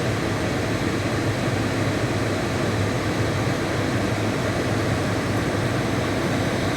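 Steady rush of a 2012 Dodge Charger SRT's climate-control blower, with a low, even hum from the running car underneath, heard inside the cabin.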